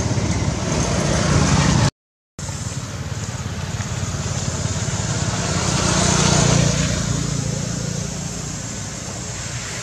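Steady rumbling background noise with hiss. It cuts out completely for a moment about two seconds in, then swells and fades again around six seconds in.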